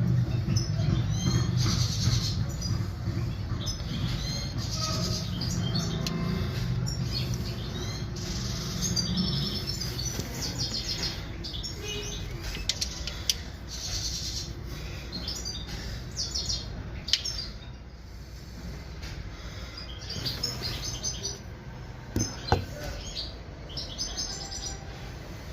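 Small birds chirping repeatedly, with short quick calls throughout. A low steady hum sits underneath, fading after the first half, and a few sharp clicks stand out late on.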